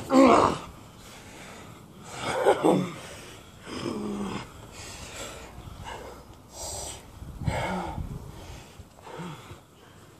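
Two people sparring with boxing gloves, breathing hard in short loud gasps and grunts every second or two. The loudest burst comes right at the start, as a punch is thrown.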